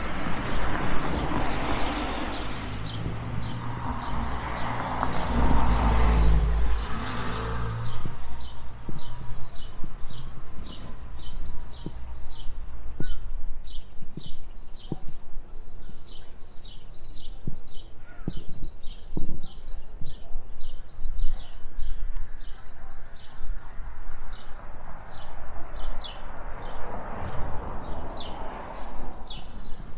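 Street sound from a bicycle ride: a car passes in the first several seconds and another near the end, under a steady run of short high chirps, about two a second, and scattered light knocks.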